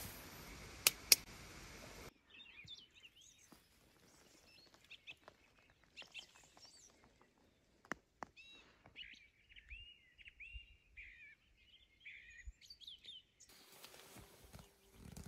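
Faint songbirds chirping and singing in the early-dawn quiet, with a longer run of trilled song phrases in the second half. Early on, two sharp clicks over a steady hiss are the loudest sounds.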